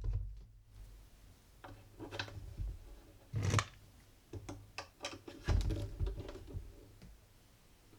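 Scattered light clicks and knocks of hand tools and knob hardware being handled against a wooden dresser drawer.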